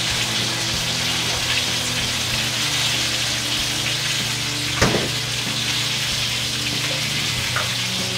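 Chicken thighs sizzling steadily in a frying pan on the stove. A single sharp click about five seconds in.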